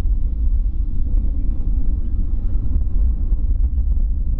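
Steady low rumble of a Boeing 787-9's jet engines as the airliner rolls along the runway, heard from afar, with wind buffeting the microphone.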